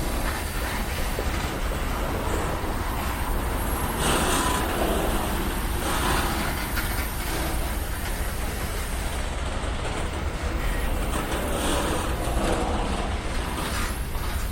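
BNSF freight train cars rolling past, a steady rumble of steel wheels on the rails with a few brief louder swells.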